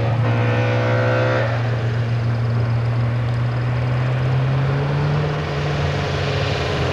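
Ford Escort RS2000 MkII hillclimb race car engine running hard under acceleration as the car climbs toward the listener. Its note rises slowly for about five seconds, then eases off near the end.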